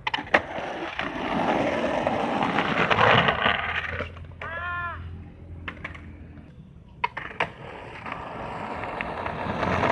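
Skateboard wheels rolling on asphalt, loudest in the first few seconds, with several sharp clacks of the board hitting the road. About halfway through, a short pitched tone rises and falls.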